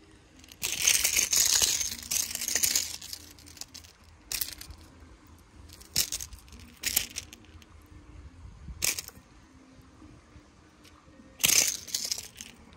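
Handling noise as wet water weed is stripped off a treble-hooked fishing lure and a small bass hanging from it is handled. A long crinkly rustling comes first, then a string of short clicks and light rattles.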